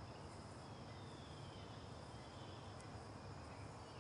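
Faint outdoor ambience: a steady high insect drone over a low rumble, with no distinct tool or impact sounds.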